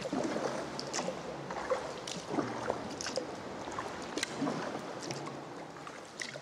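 Sea kayak paddled inside a sea cave: irregular paddle splashes with water lapping and dripping around the hull.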